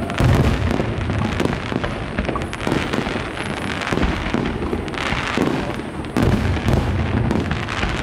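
Fireworks display: aerial shells exploding in quick succession, with crackling between the bangs. The heaviest bangs come just after the start and again at about six seconds.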